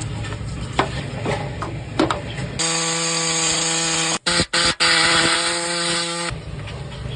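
Light clicks and knocks of handling, then a power tool running with a steady whine for about four seconds, stopping three times in quick succession near the middle before running on and cutting off abruptly.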